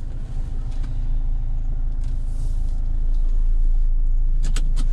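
Mahindra Thar 4x4's engine running steadily, with a few sharp clicks near the end.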